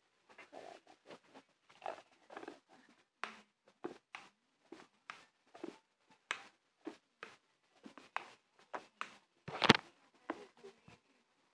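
Slime being squeezed and mashed by hand: a run of short, irregular wet squishes and clicks, with one much louder pop about ten seconds in.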